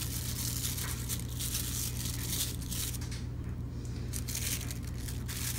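Plastic wrap crinkling and rustling as raw sausage meat is worked out of its slit casing by hand, in short irregular bursts, over a steady low hum.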